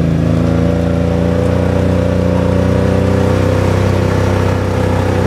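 Kawasaki Mule utility vehicle's engine running steadily as it drives, heard from on board, with the pitch easing down a little near the end.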